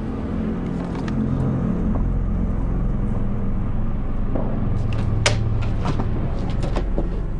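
A low, steady rumble or drone, with a few faint clicks about five seconds in.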